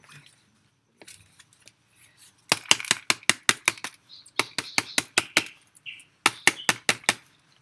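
Rapid tapping on a plant pot, about five sharp taps a second in three runs, to loosen the soil and root ball before the plant comes out.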